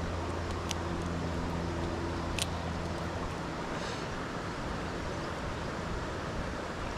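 Steady rush of a small stream, with two sharp metallic clicks, one under a second in and a louder one about two and a half seconds in, as fishing pliers work a hard-bodied wobbler out of a brown trout's mouth. A low hum fades out about halfway through.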